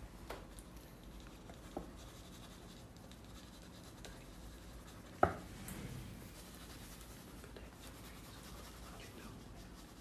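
Wax crayons scratching over the paper of a colouring book in short colouring strokes, faint throughout. A single sharp tap about five seconds in is the loudest sound, with a few smaller clicks earlier.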